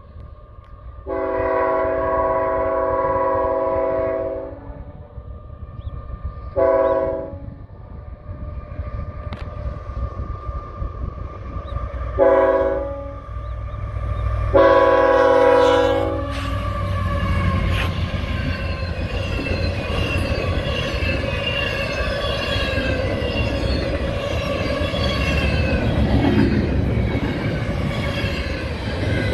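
A diesel freight locomotive's multi-note air horn blowing four blasts as it approaches: long, short, short, then long. The CSX intermodal freight train then passes close by, its wheels rumbling and clattering on the rails.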